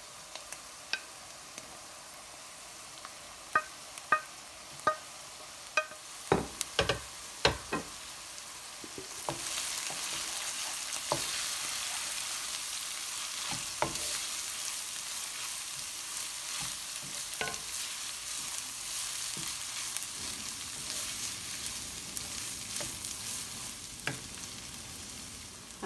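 Chopped tripe frying in a pan with onion and butter for dulet, sizzling, while a spoon knocks and scrapes against the pan as it is stirred. The sizzle turns louder and hissier about nine seconds in and eases off toward the end.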